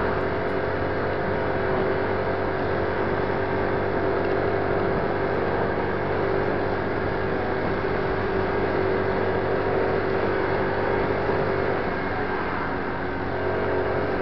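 50cc Alpha Motors Mustang F1 scooter engine running steadily at cruising speed, heard from the rider's seat, with wind and road noise mixed in.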